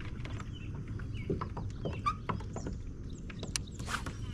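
Birds calling from the shore: a string of short calls, with a brief hiss about four seconds in, over a steady low rumble.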